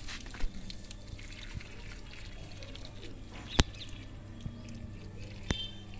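Water from a garden hose running and trickling onto loose soil, with a few sharp clicks, the loudest about three and a half seconds in.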